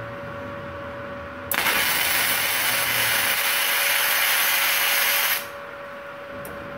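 Gasless flux-cored MIG welding arc from a Multipro MIG-MAG 200 G SP welder set at 19.5 V and 100 A. It strikes suddenly about a second and a half in, runs steadily for about four seconds, and cuts off suddenly. A thin steady hum sounds throughout.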